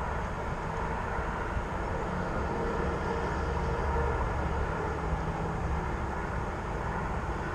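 Steady low rumble of outdoor background noise with a faint hum, unchanging throughout.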